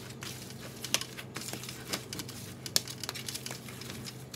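Ground turkey mixture being kneaded by hand in a plastic bowl, with plastic gloves on: irregular squishing and crinkling with sharp clicks and taps, the loudest about a second in and just under three seconds in.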